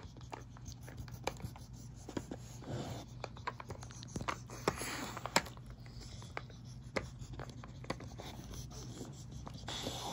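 Dog working a plastic puzzle feeder with its nose and tongue, pushing the sliding lids: irregular plastic clicks and scraping, with a few snuffling breaths.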